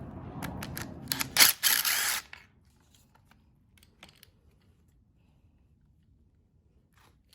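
A few sharp clicks and a short metallic rasp of hand tools working at the engine, ending about two seconds in, then near silence with a couple of faint ticks.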